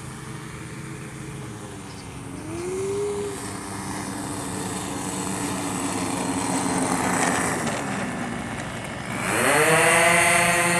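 Small model-airplane engine running in flight. Its pitch rises about two seconds in, sags around seven to eight seconds, then climbs sharply and gets loudest near the end as the model is throttled up on a low pass.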